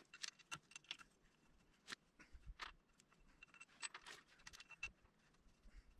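Faint, scattered metallic clicks and clinks of bolts and a wrench being handled as the bolts come out of an oil dump valve's housing.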